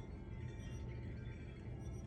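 Strong gusty wind rumbling low and steady, with scattered high ringing, clinking tones over it.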